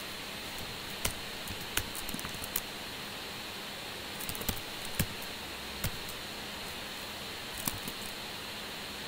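Computer keyboard being typed on in short, scattered runs of keystrokes over a steady background hiss.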